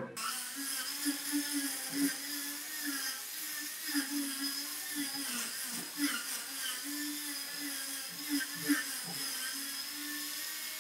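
Electric angle grinder fitted with a sanding disc, running at high speed while sanding a solid wooden body panel. It gives a steady motor whine with a few brief dips and scrapes.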